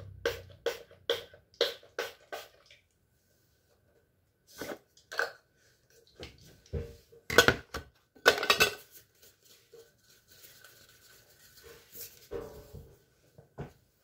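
A quick run of perfume spray pumps, about three short spritzes a second, followed by scattered knocks and handling bumps.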